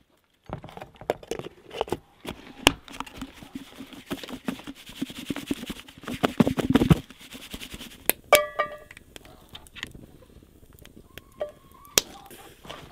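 Pieces of tenderized grouse breast shaken in a plastic tub of seasoned flour to coat them: a dense, irregular rattling and knocking that grows louder and stops about seven seconds in. A brief squeak and a few scattered clicks follow.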